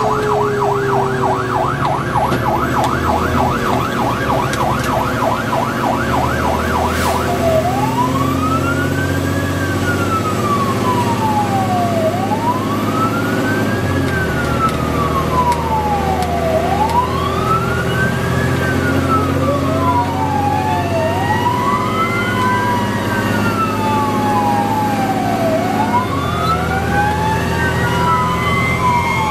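Fire engine's siren heard from inside the cab, on a fast yelp that switches to a slow rising-and-falling wail about seven seconds in. A second wailing siren joins out of step in the second half. The truck's engine runs steadily underneath, changing pitch a few times as it drives.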